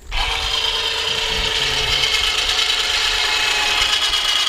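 Winch tightening the steel cable of a tree-pulling rig, a loud steady mechanical sound of fixed pitch that starts and cuts off abruptly.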